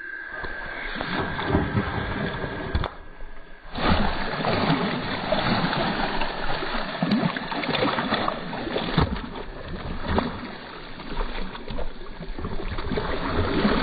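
Water splashing as a large hooked carp thrashes at the surface on the line, in an uneven run of splashes that swell and fade.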